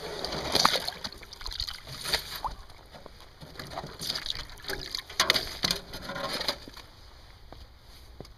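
Sheets of ice being lifted out of a galvanized metal water trough and broken up: water splashing and sloshing, with the ice knocking against the trough, in three bursts, the longest in the second half.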